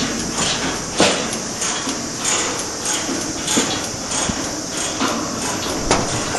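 Construction site noise: a steady hiss with irregular sharp knocks and clanks, the loudest about a second in, near the middle and near the end.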